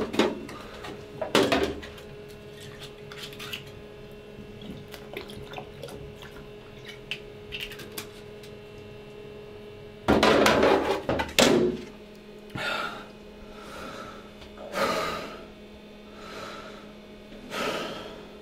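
Bathroom mirror-cabinet door knocking and small objects tapping on the shelf, then a loud clatter of a glass bottle being taken out and handled a little past halfway. After it come short breaths, roughly one every second or so.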